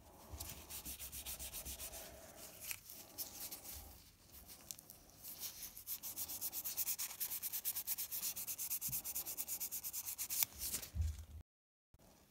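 Hand sanding and polishing of an old Victorinox pocket knife, with its horn scales and blade being restored: quick back-and-forth abrasive strokes, about six a second, with short pauses between runs.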